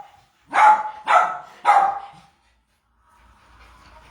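Dog barking three times in quick succession, loud and sharp.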